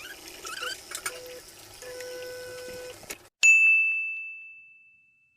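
A single bright bell ding about three seconds in, sharp at the start and fading away over about two seconds, after a few seconds of faint room noise.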